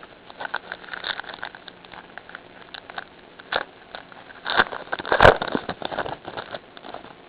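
Baseball card pack wrapper crinkling and crackling as it is torn open and handled, with irregular rustles and a sharp tearing snap a little past the five-second mark.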